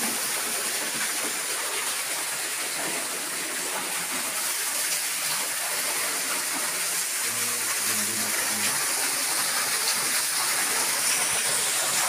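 Water from a small waterfall, about four metres high, falling onto rock and splashing: a steady rushing hiss.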